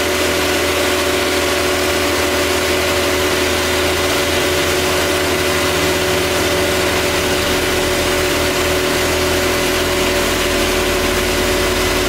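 INOVA UNIVIB seismic vibrator truck running with its baseplate down on the ground, a steady engine and hydraulic whine over a low rumble. The rumble shifts in character a little past halfway, as the baseplate works through its vibration sweep.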